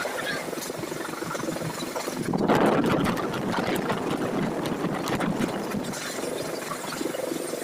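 Running noise of a moving vehicle: a steady rumble with a rattling texture, swelling louder about two and a half seconds in.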